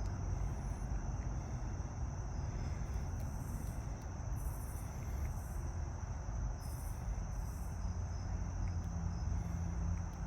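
Crickets trilling in a steady, unbroken high-pitched chorus, over a continuous low rumble.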